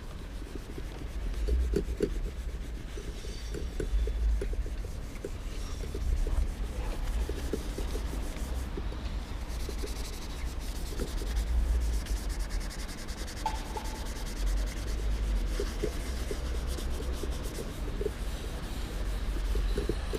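Steel wool rubbed back and forth in short, irregular strokes against glazed ceramic wall tiles, scrubbing graffiti off them. A low rumble sits underneath.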